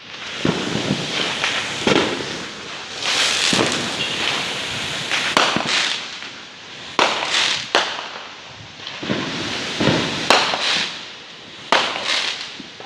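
Fireworks and firecrackers going off, with sharp bangs every second or two over a steady crackling hiss.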